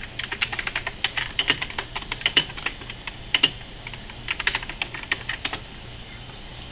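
Typing on a computer keyboard: a quick run of keystrokes, a short pause, then another burst of keys that stops about five and a half seconds in.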